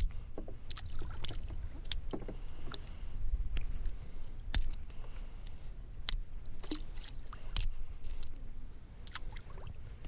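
Water lapping and splashing, with a steady low rumble underneath and about fifteen sharp clicks and light knocks scattered at irregular intervals.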